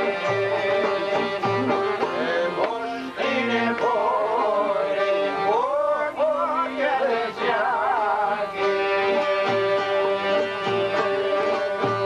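Albanian folk music played on long-necked lutes and a violin: plucked strings over a held drone note, with a wavering, ornamented melody in the middle few seconds.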